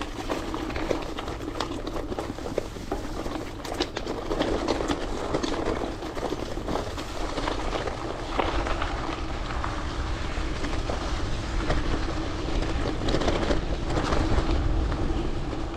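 Gravel bike being ridden: tyres rolling over the road surface, with a steady hum and frequent clicks and rattles from the bike. It gets a little louder about halfway through.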